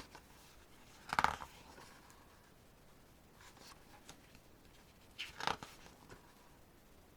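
Pages of a hardcover photo book being handled and turned: two brief paper rustles, about a second in and again around five seconds in.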